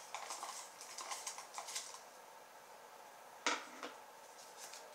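Hands rummaging through folded paper slips in a plastic bowl, light rustling and clicking, then a single sharp knock about three and a half seconds in.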